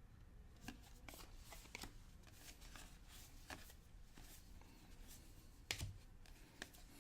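Faint handling of trading cards: cards sliding and flicking against each other, with scattered soft clicks, the loudest a little before six seconds in.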